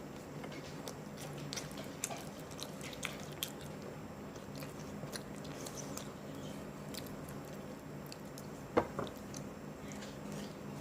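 A person chewing and biting spicy chicken close to the microphone: scattered small clicks and wet mouth sounds, with one louder smack about nine seconds in.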